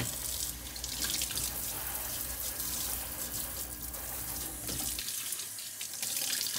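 Kitchen faucet running into a stainless steel sink, the stream splashing over a plastic sponge-and-soap tray being rinsed under it.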